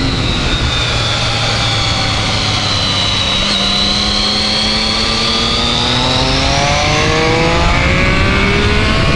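Triumph Speed Triple's inline-three engine heard from onboard over heavy wind rush. Its note dips gently through a corner, then rises steadily as the bike accelerates out onto the straight.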